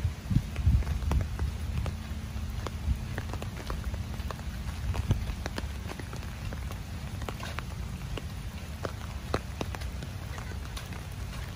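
Rain falling, with individual drops ticking sharply and irregularly against a surface over a low rumble. The rumble is loudest in the first second or so.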